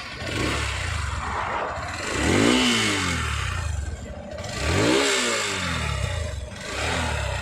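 Hero Xtream 200S's air-cooled single-cylinder engine idling, revved twice with short throttle blips that rise and fall in pitch, about two and a half seconds apart.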